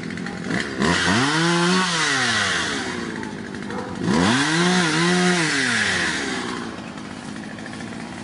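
Small engine revving up and back down twice, about three seconds apart, over steady background noise.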